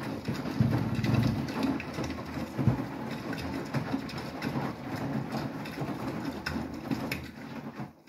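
Beko WTK104121W front-loading washing machine in its main wash: the drum turns over a half load of wet laundry, with water sloshing and splashing and an uneven, surging wash noise. It grows quieter near the end.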